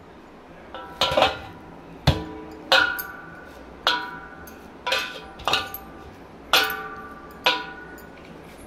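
A stainless-steel plate knocked and ringing briefly as pizza dough is pressed and kneaded on it by hand: about nine knocks, roughly one a second, each leaving a short metallic ring.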